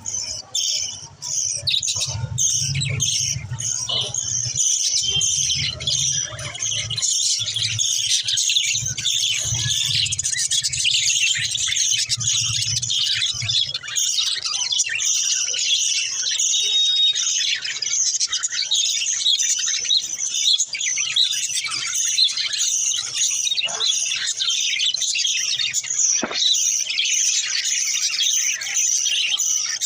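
Budgerigars chirping and chattering continuously in a dense stream of high calls, with a low hum underneath for roughly the first half.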